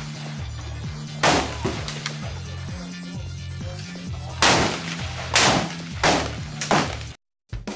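Five rifle shots from a .308 rifle fitted with a SuperComp XL muzzle brake: one about a second in, then four in quick succession about a second apart near the end. Background music plays underneath.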